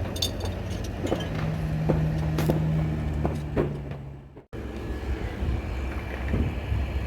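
Fireworks going off around: a handful of sharp pops and cracks over a steady low hum. The sound cuts out completely for a moment about four and a half seconds in.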